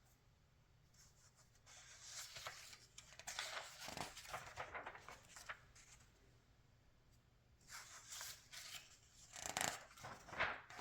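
Magazine pages being turned by hand, paper rustling and sliding in two spells, about two seconds in and again near the end, with the louder crinkle in the second.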